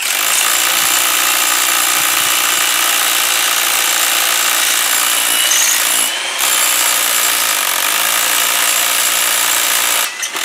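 Hilti TE 14 rotary hammer drilling into granite, running steadily with a brief let-up about six seconds in, and stopping near the end.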